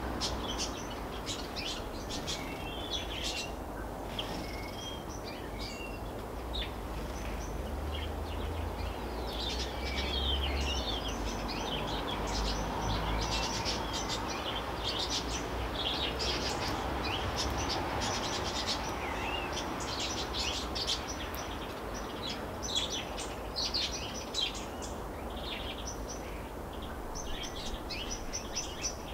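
European greenfinches chirping and twittering, many quick short calls overlapping, over a steady low background rumble.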